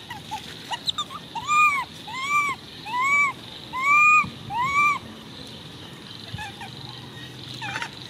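Baby macaque calling: a run of five loud, high coo calls about a second apart, each rising and then falling in pitch over about half a second, with a few shorter, fainter calls around them.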